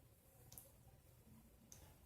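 Near silence with two faint, short clicks, one about half a second in and one near the end.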